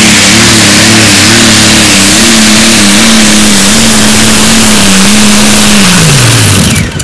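Light modified pulling tractor's engine running very loud at full throttle as it drags the sled down the track, its pitch wavering slightly and then holding steady. About six seconds in, the engine winds down sharply and the pitch falls.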